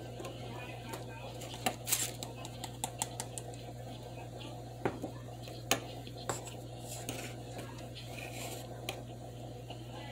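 Close-up chewing of cold cornstarch: irregular sharp crunches and clicks that come in clusters, over a steady low hum.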